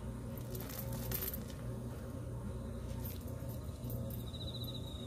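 Adult Jindo-mix dog giving a low, rumbling growl in short stretches, warning the puppy off the rat she has caught. A few faint chain clinks come about a second in.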